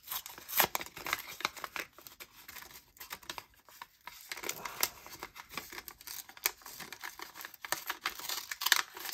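Small white paper envelope handled and torn open by hand: irregular rustling, crinkling and tearing of paper, with sharp little crackles.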